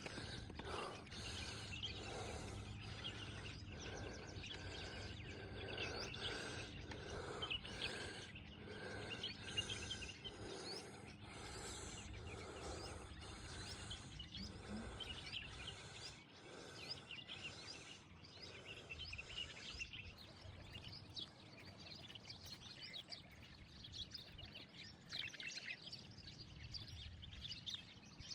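Steady crunching on stony ground, about two strokes a second, thinning out after about twenty seconds, with small birds chirping.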